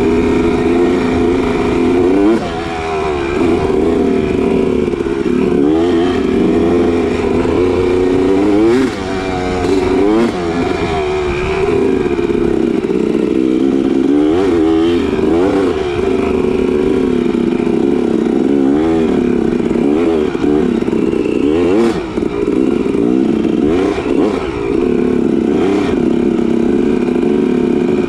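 Dirt bike engine running hard on a trail ride, the revs rising and falling over and over as the throttle is rolled on and off, with a few brief drops where the rider lets off.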